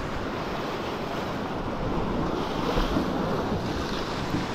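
Sea surf washing and breaking over shoreline rocks, with wind buffeting the microphone in a low rumble.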